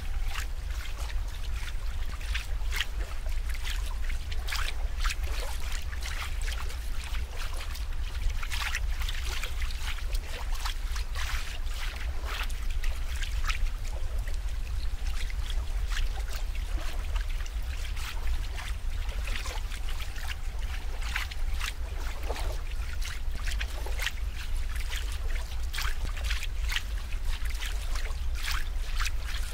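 Water trickling and splashing in many small, irregular bursts over a steady low rumble.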